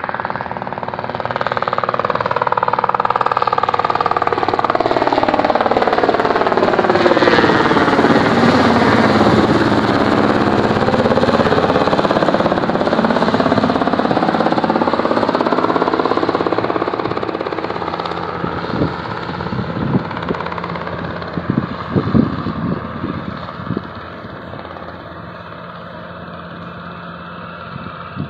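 A light two-bladed helicopter flying low overhead. The rotor and engine grow louder, and the tone sweeps down and back up with a phasing whoosh as it passes over about ten seconds in. It then fades as the helicopter flies away. A few sharp knocks come between about nineteen and twenty-three seconds in.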